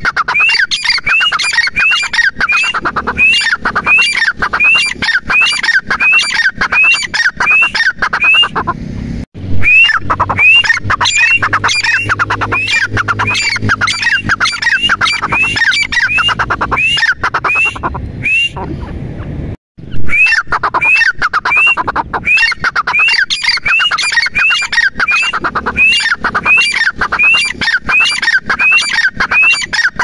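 Grey francolin calling: a loud, fast, continuous series of shrill rising notes, about two a second, broken twice by brief gaps.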